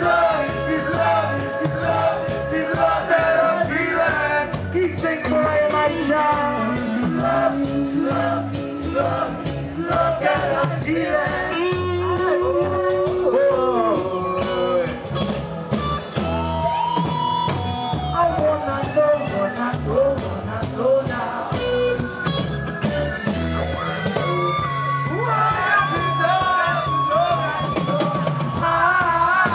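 Live reggae band playing, with drums and bass under a melodic lead line.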